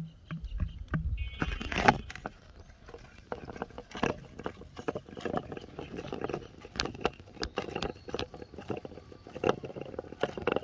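Plastic bottle and twine being handled: irregular crackles, rubs and light taps as string is wound around the bottle on its stick, with a sharper knock about two seconds in.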